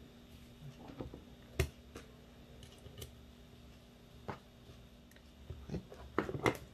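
Scattered light clicks and knocks of an airsoft Ver3 gearbox shell and a screwdriver being handled on a workbench, with a quick run of clicks near the end.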